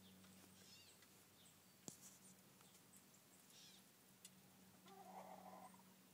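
Near silence with a few faint, high chirps of small birds, a faint click about two seconds in, and a short soft sound about five seconds in.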